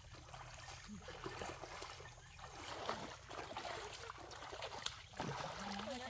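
Legs wading through shallow, muddy water, the water sloshing with many small splashes, busier in the second half.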